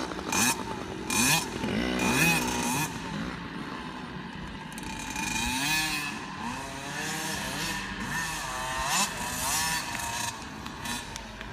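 Dirt bike engine revving, its pitch climbing and dropping again and again through the gears, loudest in the first few seconds.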